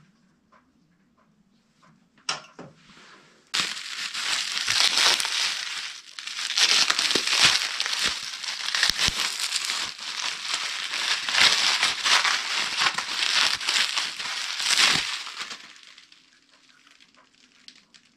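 Clear plastic wrapping crinkling and crackling for about twelve seconds as a propane conversion regulator is unwrapped by hand. A sharp click comes about two seconds in.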